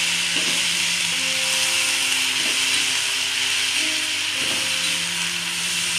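Metal spoon scraping and stirring hyacinth bean pods in a metal kadhai, a steady rub and scrape over the frying sizzle of the spiced vegetables.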